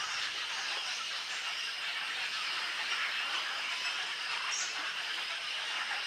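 Continuous chatter of a crowded egret colony: many birds calling at once in a steady, dense din, with no single call standing out and a brief high chirp about four and a half seconds in.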